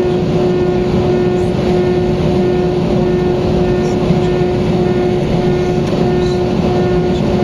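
Airbus A320neo's Pratt & Whitney geared turbofan engines running steadily, heard from inside the passenger cabin: a constant deep rumble with a steady hum held at one pitch.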